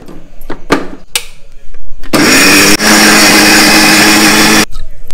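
Electric mixer grinder running for about two and a half seconds, grinding grated coconut with chili powder and turmeric into curry paste, with a brief stutter near the start of the run, then cutting off sharply. A few knocks of the jar and lid being handled come before it.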